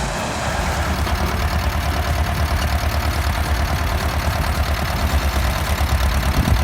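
Ursus C330 tractor's two-cylinder diesel engine running steadily, with an even, rapid low throb, as it drives a PTO-powered auger wood splitter.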